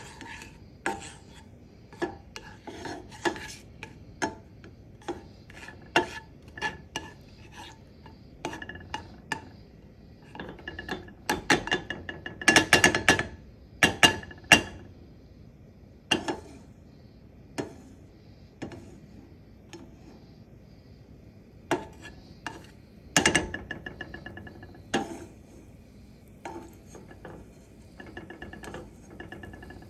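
Metal utensil clinking, tapping and scraping against a pan on the stove, in scattered strikes with a brief metallic ring, with a denser spell of scraping about halfway through.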